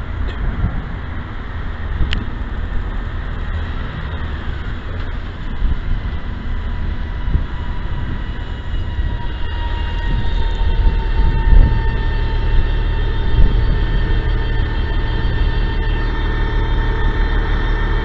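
City bus running close by: a steady low engine rumble that grows louder about halfway through, with a high steady whine coming in at the same time.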